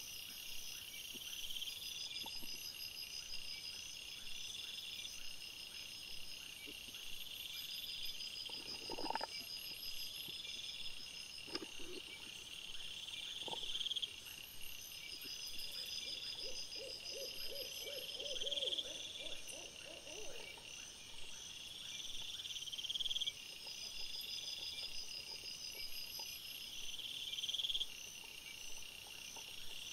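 Night insects trilling in overlapping repeated phrases, high-pitched and steady. A couple of brief low sounds come around the middle, followed by a short run of rapid low pulses.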